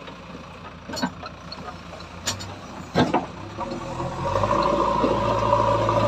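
A JCB backhoe loader's diesel engine runs low, with a few sharp knocks about one, two and three seconds in. A little after four seconds the engine speeds up and runs louder and steady.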